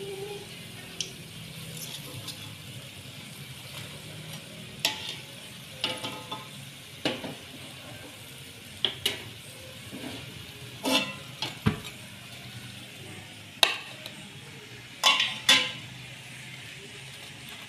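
Oil sizzling faintly in a wok as mushroom fritters are lifted out with a metal spatula, which clinks and scrapes sharply against the wok about a dozen times.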